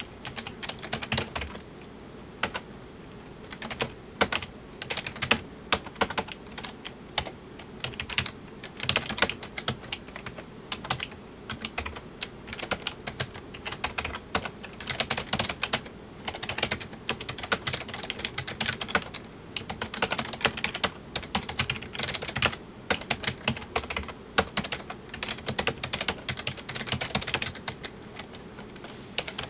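Typing on a full-size PC keyboard: rapid runs of key clicks broken by short pauses, over a faint steady hum.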